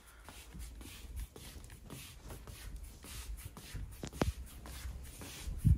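Soft footsteps of fuzzy slippers shuffling and scuffing on a wooden floor, with two heavier thumps, the second near the end.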